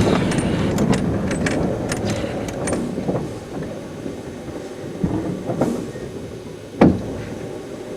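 15-inch gauge miniature steam train running, its wheels and running gear clattering with quick sharp clicks that die away after the first few seconds. A single loud knock comes near the end.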